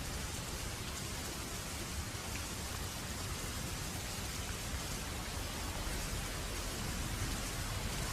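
Steady rain falling, an even hiss, with a low rumble swelling slightly near the end.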